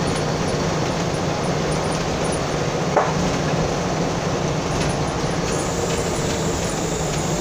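Steady engine hum and road noise inside a moving vehicle, with a single brief knock about three seconds in.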